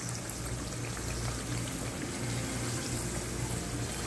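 Gram-flour-battered potato slices deep-frying in hot oil: a steady sizzle and bubbling.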